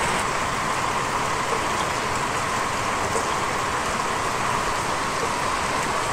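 Heavy tropical rain falling steadily: an even, unbroken hiss.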